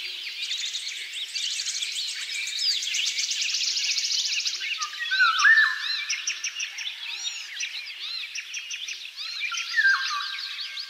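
Dense chorus of many songbirds singing at once, with overlapping chirps, fast trills and whistles, and a louder whistled note about five seconds in.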